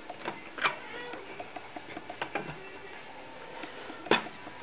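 Small plastic clicks and taps as the hinged door of a truck's overhead console is handled and fitted back into its housing, with a sharper click about four seconds in.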